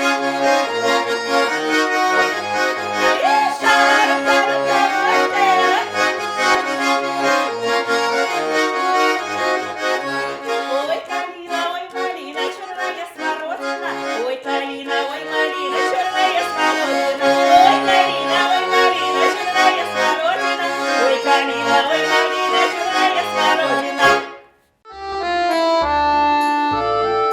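Accordion playing a Russian folk-style tune, a busy melody over regular bass notes. About 24 seconds in it breaks off for a moment and another accordion passage begins.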